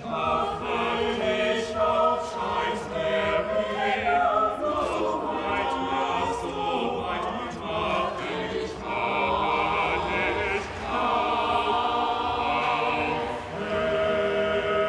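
Mixed choir of women's and men's voices singing in several parts, in held phrases with short breaks between them.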